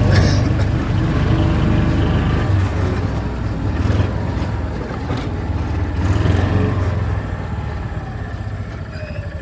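John Deere Gator utility vehicle's engine running while driving, its note rising and falling a few times before easing off toward the end as the vehicle slows.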